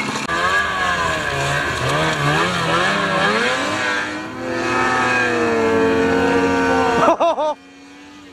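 Two-stroke snowmobile engine revving up and down as the sled is ridden through deep powder; the sound drops away abruptly about seven and a half seconds in.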